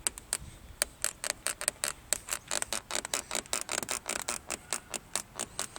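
Ford Focus 3 door's outer panel creaking in a fast run of short clicks, about six a second: the door squeak that the panel is known for.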